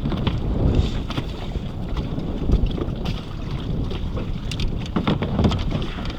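Gusty wind buffeting the microphone in a low, uneven rumble, with a few sharp knocks about two-thirds of the way through.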